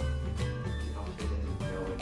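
Background music with bass notes and a steady beat.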